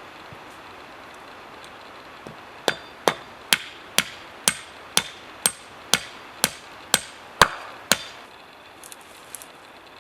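A hammer striking a dozen evenly paced blows, about two a second, each with a short metallic ring.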